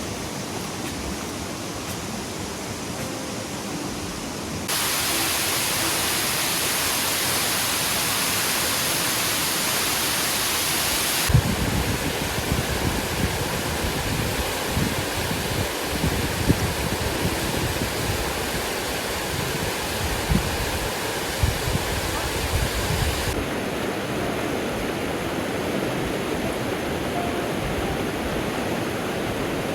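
Steady, loud rush of falling water from a waterfall, changing abruptly in loudness and tone about 5, 11 and 23 seconds in. Between about 11 and 23 seconds, low irregular buffeting sits under the rush.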